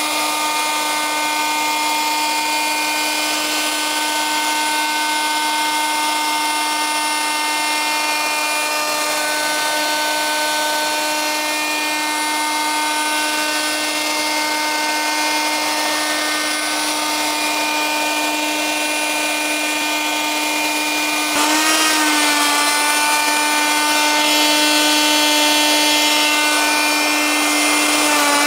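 Triton router running at full speed as it flattens a rough walnut slab on a sled jig, a loud, steady high whine. About 21 seconds in the pitch dips for a moment and the sound gets louder.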